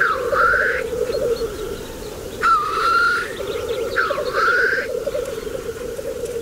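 Black grouse cocks lekking: a continuous bubbling rookooing chorus, with three loud hissing 'tshu-wheesh' calls: at the start, about two and a half seconds in, and about four seconds in.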